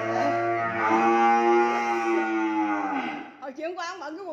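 A cow mooing: one long, low call of about three seconds that falls in pitch as it ends.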